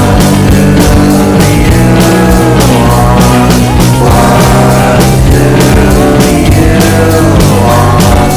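Background music: a loud rock-style song with guitar and a singing voice.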